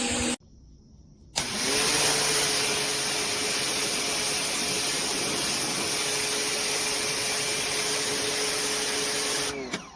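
Electric pressure washer running: it cuts out briefly near the start, then its motor starts again about a second and a half in with a rising hum and runs steadily with a loud hiss, winding down just before the end.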